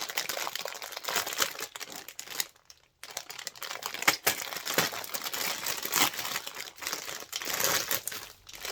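Gift wrapping crinkling and crumpling as a wrapped package is opened by hand, in dense irregular crackles with a brief break about two and a half seconds in.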